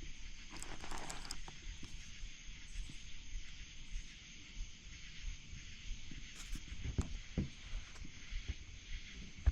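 Outdoor noise on open water: a steady hiss with uneven low wind rumble on the microphone, broken by a few sharp knocks and clicks, the loudest about seven seconds in.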